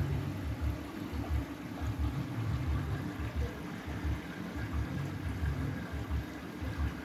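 Samsung WW90TA046AE/EU front-loading washing machine filling its empty drum with water at the start of a quick wash: a steady rush of water over an uneven low throbbing.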